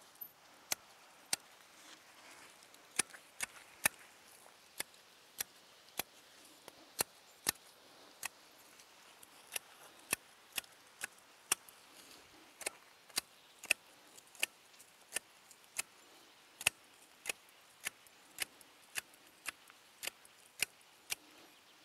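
Garden shears snipping thuja shoots: a run of short, sharp cuts at about two a second, with a brief pause near the start.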